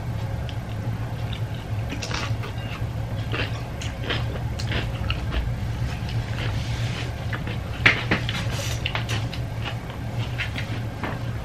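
Close-up eating sounds: chewing and lip-smacking with scattered small clicks of plates and cutlery, one sharper click about eight seconds in, over a steady low hum.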